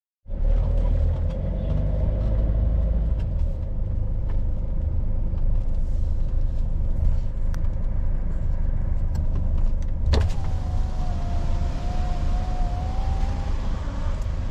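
Cabin noise of a Hyundai van being driven: a steady low engine and road rumble. About ten seconds in there is a sharp click, followed by a faint wavering tone that lasts about three seconds.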